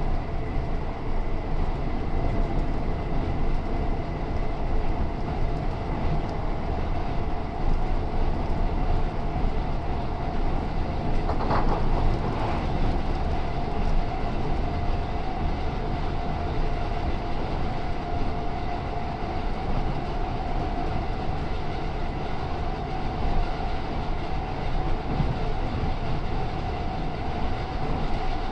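Class 317/7 electric multiple unit running on the line: a steady rumble of wheels on rail with a whine from its nose-suspended traction motors, the whine rising slightly in pitch over the second half. A brief rush of noise comes about twelve seconds in.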